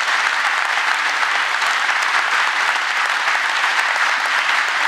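Sustained applause from a large audience in a chapel, many hands clapping in an even, dense wash.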